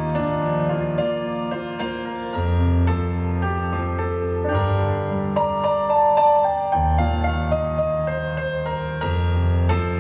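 Live rock band playing the instrumental closing section of the song, with a piano or keyboard melody over bass and guitars.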